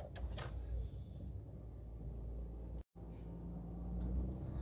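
Low, steady rumble of a car driving, heard from inside the cabin, with a few sharp clicks near the start. The sound cuts out completely for a moment about three seconds in.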